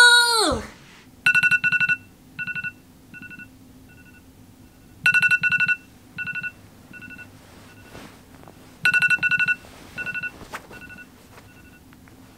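Smartphone alarm going off: a quick burst of rapid high beeps followed by fainter, fading repeats, the pattern sounding three times about four seconds apart.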